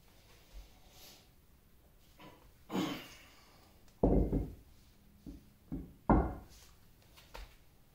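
Irregular knocks and clunks of tools and metal parts against a cast-iron lathe, from work beneath the bed; the loudest come about four and six seconds in.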